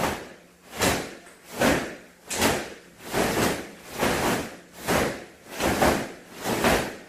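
Taekwondo uniforms snapping in unison as a group throws alternating middle punches: a short swish about every 0.8 seconds, about nine in a row.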